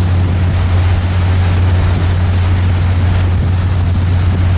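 Boat underway: the engine runs with a steady low drone, under a rush of wind and water noise.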